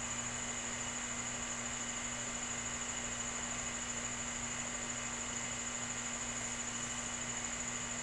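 Steady background hiss with a constant low hum and an unbroken high-pitched whine; nothing starts or stops.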